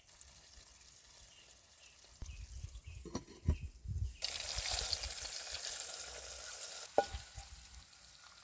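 Food sizzling in a hot pan, the hiss starting suddenly about four seconds in and cutting off abruptly just before seven seconds. It comes after a few knocks and is followed by a sharp click.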